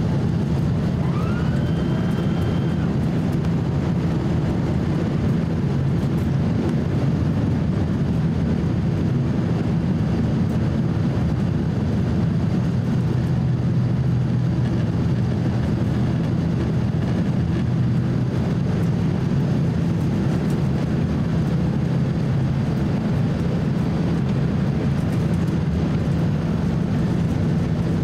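Steady cabin drone of a Boeing 767-300 airliner descending on approach: engine and airflow noise heard from a seat over the wing, with a low hum underneath.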